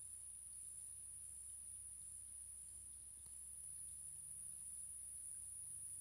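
Insects buzzing in a steady high-pitched drone, with a fainter insect call pulsing about three times every two seconds underneath.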